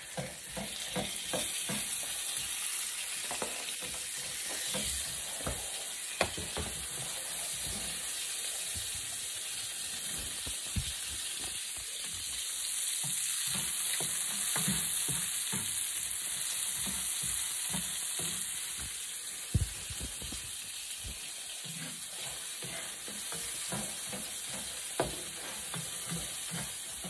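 Sliced onions sizzling in hot oil in a nonstick frying pan, with a steady hiss, while a spatula stirs and scrapes them, clicking and now and then knocking sharply against the pan.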